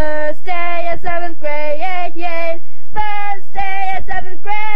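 A girl singing a made-up tune with no accompaniment, in several short phrases of held notes, the last one pitched higher. A few dull low thumps sound underneath.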